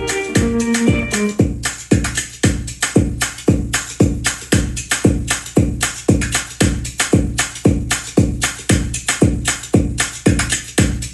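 Afro-pop beat's programmed drum pattern playing in a steady, even rhythm of kick and percussion hits. A melodic part is heard at first and drops out about a second and a half in, leaving the drums.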